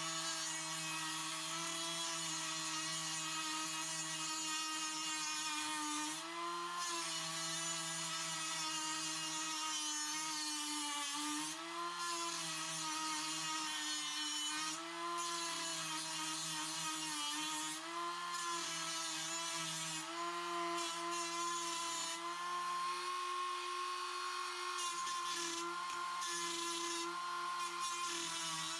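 A high-speed handheld rotary tool with a cutting wheel runs steadily, grinding through a seized brass shower-valve bonnet nut to cut it off. Its whine dips briefly in pitch several times as the wheel bites into the metal, over a constant grinding hiss.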